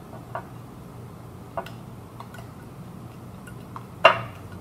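Spoon stirring a glue mixture in a glass bowl, clicking against the side now and then, with a louder clink about four seconds in.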